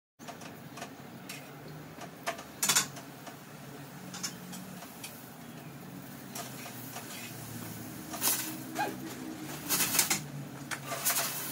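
Cooking sounds: a metal utensil clinking against a pan on the stove and things being handled and set down on the countertop, several sharp clinks and clatters over a low, steady background.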